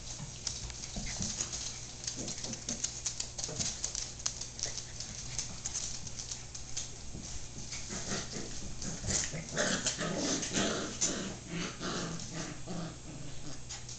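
Border collie puppies play-fighting with an adult border collie: small growls and whimpers, busier from about eight seconds in, over many small clicks and scuffles on the wooden floor.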